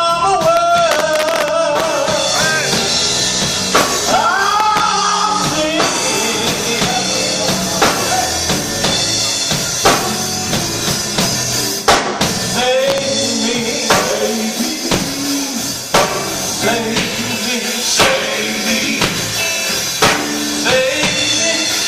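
Gospel band playing live: a singing voice over a full band with drum kit, the drums hitting strong accents about every two seconds.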